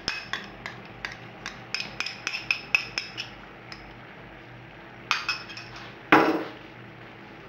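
A spoon clinking against a small glass bowl about a dozen times in quick succession as mustard is scraped from it into a pot of cream, then two louder clunks about five and six seconds in.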